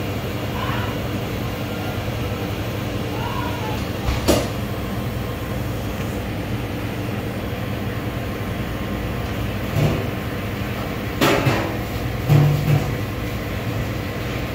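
Steady low mechanical hum from running machinery, with a sharp plastic click about four seconds in and a few knocks and clatters near the end as a plastic takeout container and its clear lid are handled.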